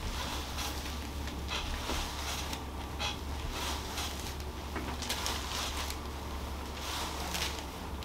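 Soft, scattered rustling and rubbing of hands and clothing as a person's neck and head are massaged, over a steady low hum.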